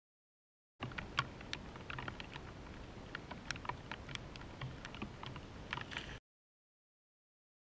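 Silent at first. Then irregular small clicks and ticks over a faint low rumble, cut off abruptly about six seconds in.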